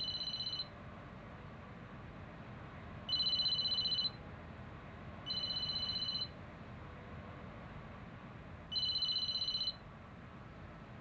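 Electronic telephone ringer trilling on two high notes, in rings of about a second each. It rings four times, a couple of seconds apart, the first ring ending just after the start.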